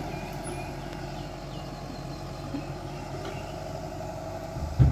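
Tata Hitachi excavator's diesel engine running steadily as its boom lifts, with a sudden low thump near the end.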